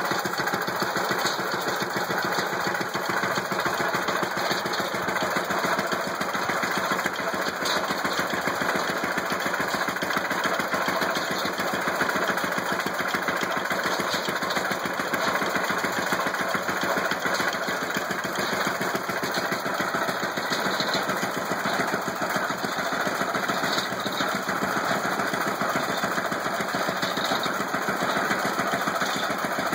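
IHC LBBR 3-5 hp stationary engine running steadily while it drives a Lilliston hay baler, with a fast, even clatter from engine and machinery.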